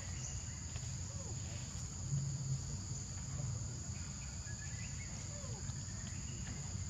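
A steady, high-pitched chorus of insects droning without a break, over a low rumble, with a few faint short chirps.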